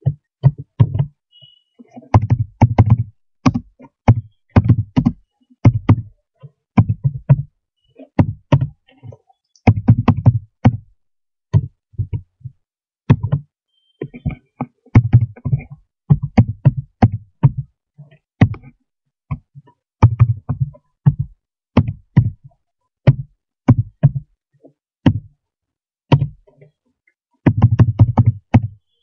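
Typing on a computer keyboard: irregular bursts of quick keystrokes with short pauses between them, each key a sharp tap with a dull thump.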